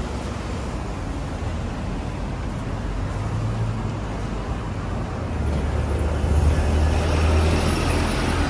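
Road traffic at a busy junction: engines and tyres of passing cars and vans. In the last few seconds a double-decker bus pulls past close by, its low engine rumble getting louder.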